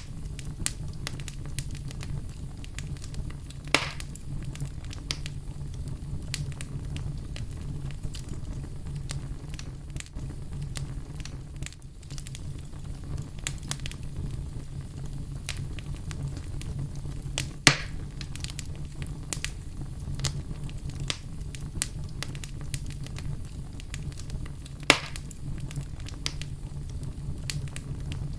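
Fireplace fire crackling steadily over a low rumble of flames, with constant small snaps and three louder pops: about four seconds in, at about eighteen seconds, and near the end.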